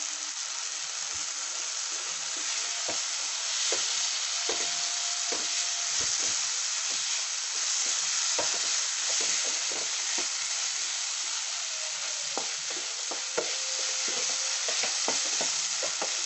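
Diced beans, potato and carrot sizzling as they sauté in oil in a nonstick pan, stirred with a wooden spatula that scrapes and taps against the pan, the taps coming thicker in the second half.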